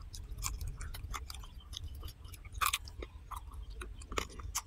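People chewing and biting into fried quail, close to the microphone: wet, irregular smacks and small crunches, with a louder crunch about two and a half seconds in and another near the end.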